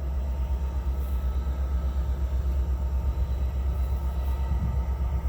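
A steady low rumble, with no clicking or sparking from the Atwood water heater's igniter: the test draws no noise from it.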